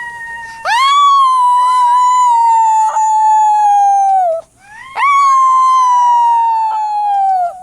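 Two long howls, each rising quickly and then sliding slowly down in pitch over about three and a half seconds, with a short break between them.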